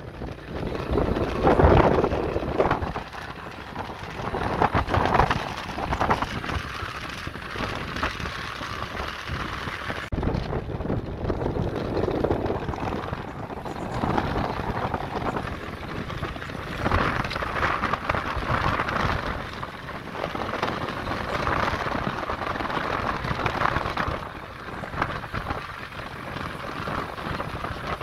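Wind buffeting the phone's microphone while riding along a road: a rough, gusting rumble that swells and fades.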